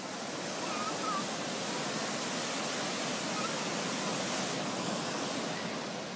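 Shallow surf washing over a sandy beach: a steady rushing hiss that fades in at the start and fades out near the end, with a few faint short chirps about a second in.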